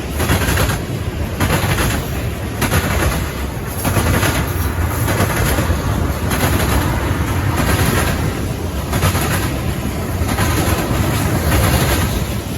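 Freight train cars rolling past: a steady rumble of steel wheels on rail, with clanks roughly every second as the wheels strike the rail joints.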